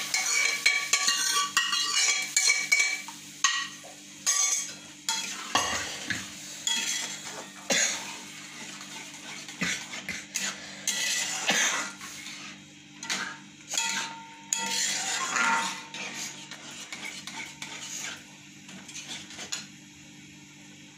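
Steel ladle scraping and clinking against metal pans as cooked dal is scooped out of the pressure-cooker pan into a steel kadhai and stirred into the fried masala. The scraping is dense for the first few seconds, then comes as separate scrapes and knocks.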